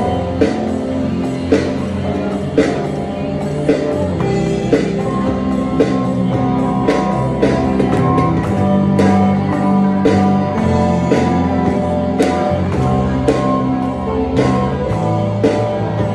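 Worship band playing live: an Alesis electronic drum kit keeps a steady beat under electric guitar and singing voices.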